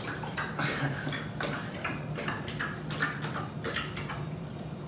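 Irregular light clicks and taps, a few a second, over a low steady hum.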